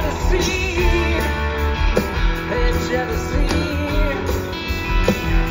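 Live rock band playing: electric guitars over a steady kick-drum beat, with a lead vocal.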